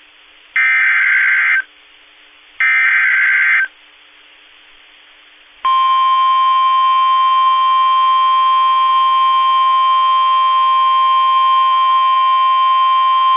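Emergency Alert System SAME header: two bursts of digital data tones, about a second each, with radio hiss between them. About five and a half seconds in, the steady 1050 Hz NOAA Weather Radio warning alarm tone starts and holds. Together they signal the start of a new weather alert.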